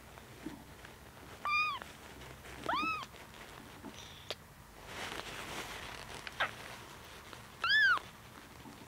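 A two-week-old kitten mewing loudly three times, each a short cry that rises and falls in pitch. It cries in protest while being rubbed with a tissue to stimulate it to urinate.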